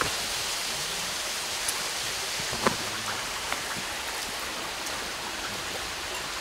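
Steady rushing of a waterfall, with a few short sharp snaps of footsteps on the path, the loudest a little under three seconds in.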